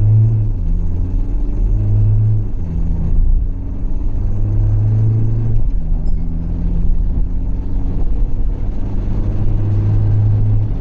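Mahindra Scorpio-N's four-cylinder turbo-diesel engine under hard acceleration, heard from inside the cabin. Its note climbs in pitch and drops back at each automatic upshift, about two and a half and six seconds in.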